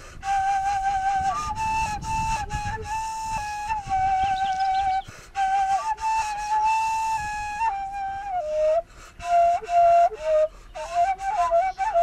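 Background music: a slow solo melody on a flute, with long held notes broken by short pauses, and shorter, quicker notes in the second half.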